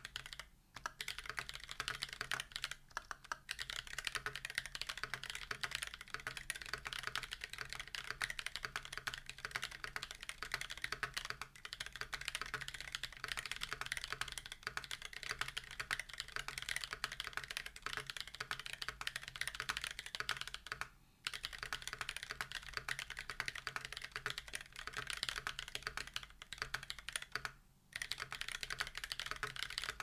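Fast, continuous typing on a custom mechanical keyboard: an aluminium Aanzee case with a brass plate, lubed Holy GSUS tactile switches and GMK keycaps. The keystrokes come as a dense run of clicks, with a few brief pauses.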